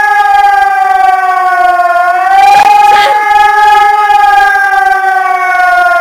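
Civil defense siren sounding the warning tone of a test alarm, a steady howl that dips and rises slightly in pitch and slowly falls near the end.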